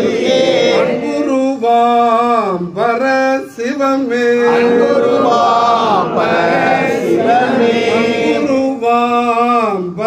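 Men's voices singing a devotional chant, with long held notes that slide between pitches.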